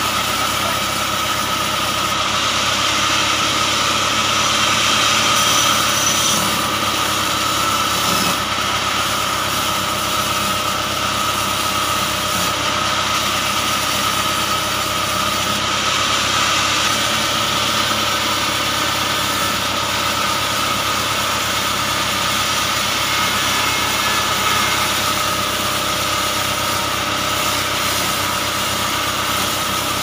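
Band sawmill running steadily with a constant high whine, its blade sawing lengthwise through a bent log being slabbed into boards.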